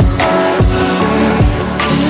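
Background electronic music with a heavy drum beat and deep bass.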